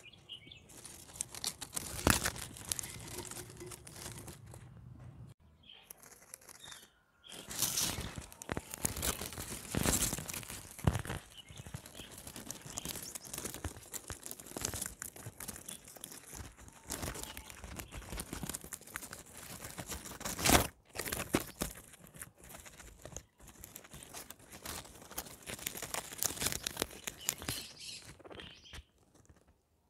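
Guinea pigs eating greens and flowers: irregular crunching, tearing and rustling of leaves and stems, with a few louder crackles.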